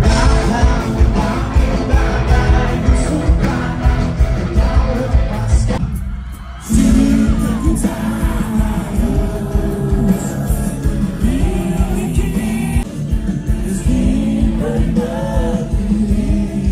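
Live rock band playing with singing, full drums and bass throughout. About six seconds in the sound drops away briefly, then the band and held sung notes come back in together.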